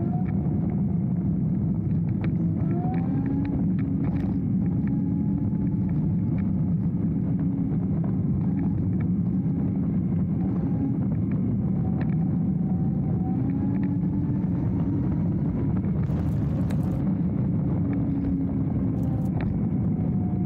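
Dualtron Thunder electric scooter riding along a dirt path: a steady rumble of tyres on the dirt and wind, with a faint motor whine drifting gently up and down in pitch and scattered small clicks.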